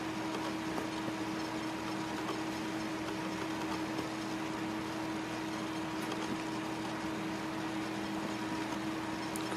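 Steady machine hum at one constant pitch over a faint even hiss.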